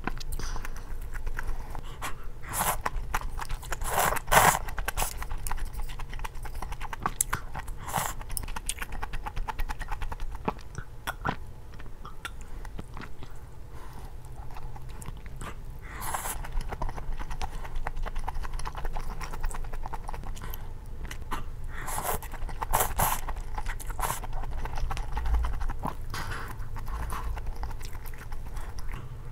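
Close-miked eating of malatang: noodles slurped in several loud bursts, with wet chewing in between.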